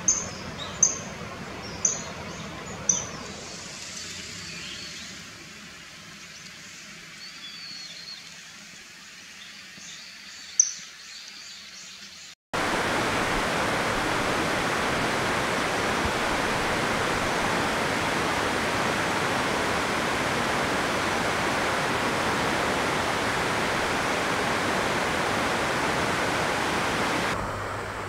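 A common kingfisher giving short, sharp, high-pitched calls, four in the first three seconds and one more about ten seconds in. At about twelve seconds this cuts to the loud, steady rush of a mountain stream.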